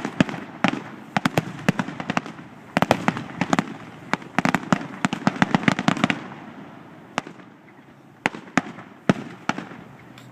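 Fireworks going off: rapid clusters of sharp cracks and pops for about six seconds, then a few single bangs spaced out.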